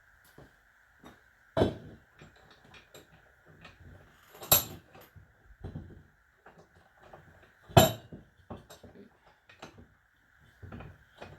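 Metal clinks and knocks of tools and hydraulic-cylinder parts being handled, with three louder clanks about one and a half, four and a half and eight seconds in. A faint steady high hum runs underneath.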